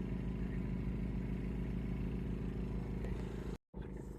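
Steady low engine hum with several even tones, cutting out for a split second about three and a half seconds in.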